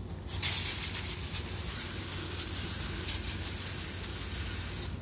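Water spraying from a garden hose nozzle onto a concrete kennel floor: a steady hiss that starts about half a second in and stops near the end.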